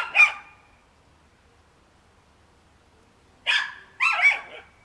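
A dog barking: one bark right at the start, then two more, about half a second apart, near the end.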